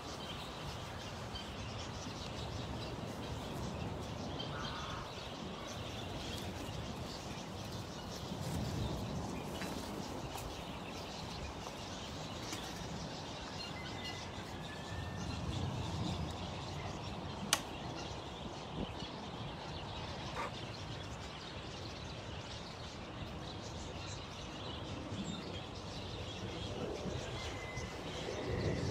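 Aviary ambience: a steady low background with a few faint, scattered bird chirps and calls, and one sharp click about two-thirds of the way through.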